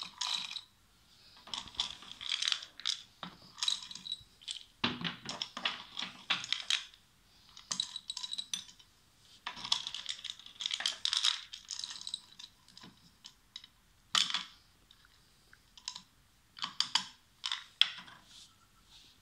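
Handfuls of wet corn kernels clattering as they are scooped from a glass bowl and dropped into the measuring cup of a Farmex MT-PRO grain moisture meter, filling it for a moisture test. The clatter comes in bunches of sharp clicks every second or two, with short pauses between handfuls.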